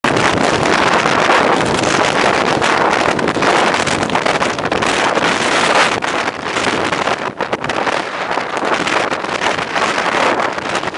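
Very strong wind blowing across the microphone: a loud, dense, steady rushing noise that buffets the mic, easing slightly after about six seconds.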